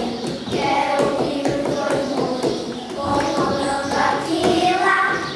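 Children's voices singing a song with music behind it, in held, gliding notes.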